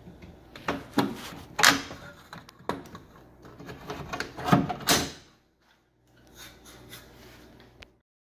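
Irregular knocks and scraping from handling the opened-up wall section, stripped of its drywall: half a dozen sharp knocks in the first five seconds, the loudest about one and a half and five seconds in, then a fainter rustle near the end.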